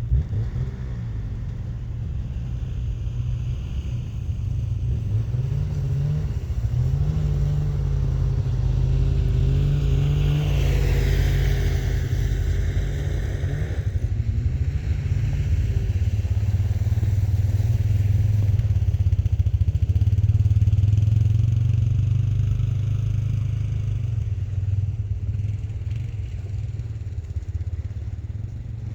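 Snowmobile engine running steadily, its pitch shifting up and down a little, with a brief higher whine that falls in pitch about eleven seconds in. It grows louder toward the middle and eases off near the end.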